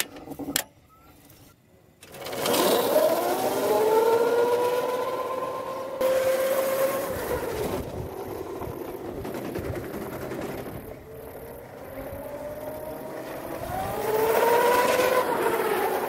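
A sharp click about half a second in, then the 24 V, 450 W electric motor of a homemade ride-on car whining as the car drives off, its pitch rising as it speeds up, holding steady, then rising again near the end.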